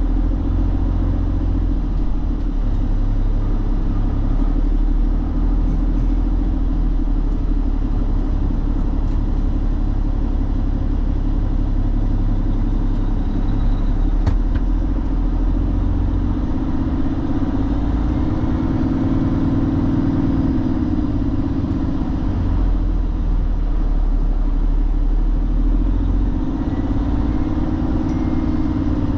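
Semi-truck's diesel engine running steadily with a low drone, its pitch rising and falling twice in the second half.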